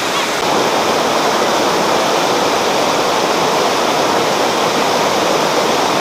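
Waterfall water rushing steadily over rocks into a pool.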